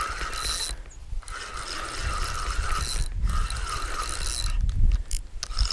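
Fishing reel being cranked to bring in a hooked fish, its gears whirring in a steady rattle with a few short pauses.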